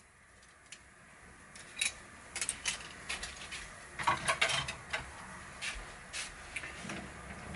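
Plastic clothes hangers clicking and clattering as they are handled and hooked onto a clothes rail and a drying rack: scattered light taps, thickest about four seconds in.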